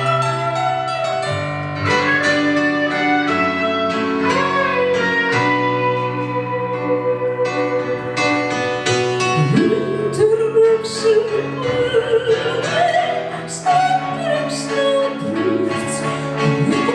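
Piano and guitar playing, with a female operatic voice coming in about halfway through, sliding up into long held notes.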